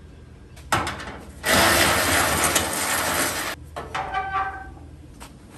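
Sheet-metal handling on a truck's radiator support: a sharp knock, then about two seconds of loud scraping as the A/C condenser is worked into place, then a shorter scrape with a metallic ring.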